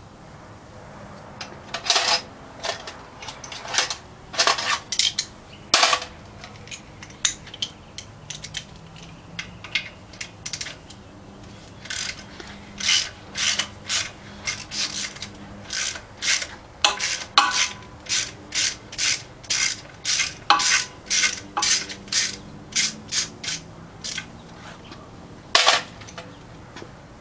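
Socket ratchet wrench clicking in short runs of strokes, about two clicks a second at times, as the manifold bolts of a Willys 4-134 engine are worked loose. A few louder sharp metal knocks stand out, near the start and near the end.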